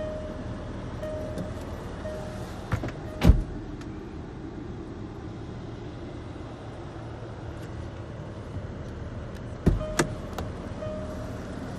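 Land Rover 3.0 SDV6 turbo diesel idling, heard from inside the cabin as a steady low rumble. A short warning chime repeats about once a second, the door-open warning, stopping a few seconds in and returning near the end. There are a few sharp knocks, the loudest about three seconds in.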